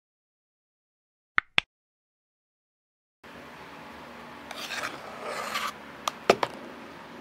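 A quick double mouse-click sound effect from a subscribe-button animation, in otherwise dead silence. A few seconds later comes steady room hiss, then an icing spatula scraping as it spreads whipped icing over a chocolate cake, followed by a few sharp taps, the loudest near the end.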